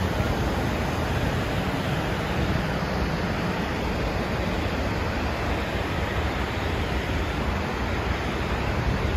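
Steady rush of water pouring over the spillway of the brimming-full Midmar Dam.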